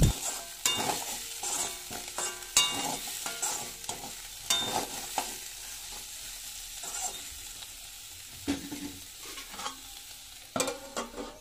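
Metal ladle scraping and clinking against a kadhai in irregular strokes while stirring potato and bitter gourd pieces as they fry, over a faint sizzle.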